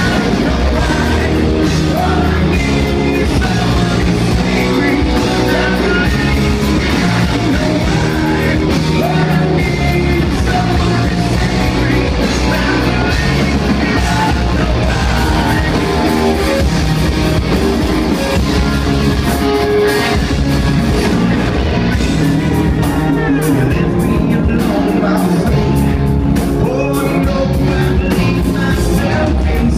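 Live rock band playing loudly: a man sings lead over electric guitars, bass guitar and drums.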